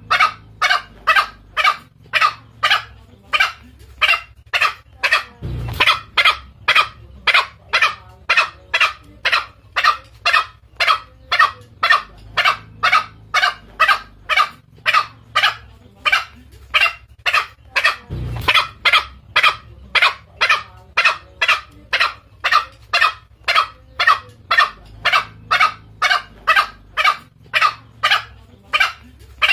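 Green junglefowl lure call: a fast, even series of short sharp calls, about two to three a second, with a lower, longer note about six seconds in and again near eighteen seconds as the series repeats. A looped recording played to draw in cock birds.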